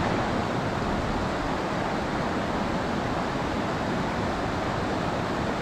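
Steady rushing of a fast-flowing river current, an even noise with no breaks.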